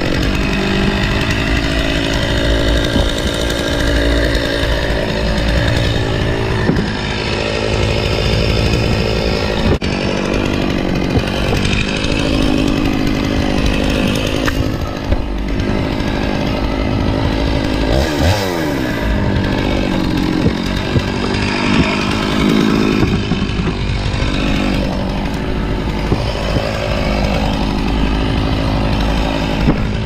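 Two-stroke chainsaw running and cutting wood, its engine pitch wavering as it works, with a sharp dip and climb again about eighteen seconds in.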